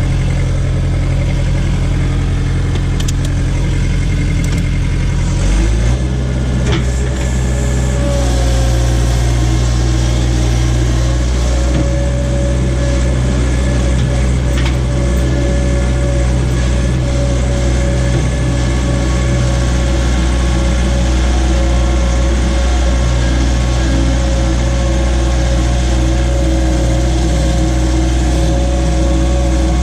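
John Deere skid steer's diesel engine running steadily under load, its engine note shifting about six seconds in. A few faint knocks sound early on.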